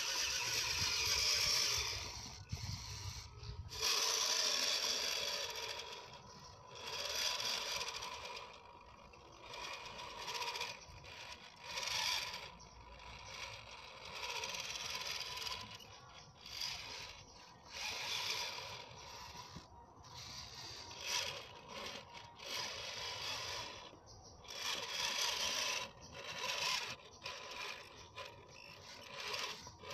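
Homemade RC Jeep Rubicon crawler's electric motor and geared drivetrain running in uneven spurts as it crawls, with scraping over the track.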